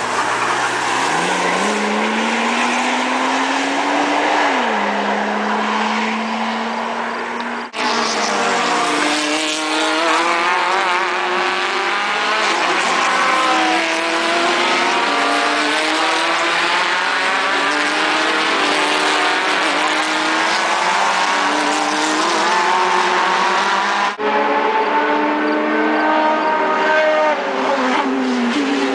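Race car engines at high revs on a road-racing circuit: first a single car's engine note climbs and then drops at a gear change, then several cars run together, their engine notes overlapping and rising and falling through gear changes. The sound breaks off abruptly about 8 and 24 seconds in.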